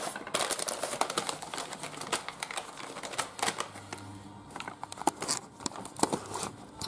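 Irregular clicking and rustling handling noise from a hand-held camera being moved about, with many small clicks in quick succession.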